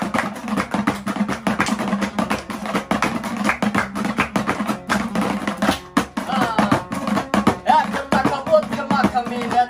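Afghan dambora music, the two-stringed long-necked lute strummed in rapid strokes over a steady low drone. A voice starts singing about six seconds in.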